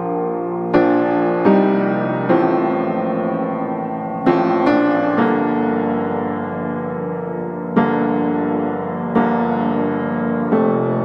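Background music: slow piano, a new chord or note struck every second or two and left to ring and fade.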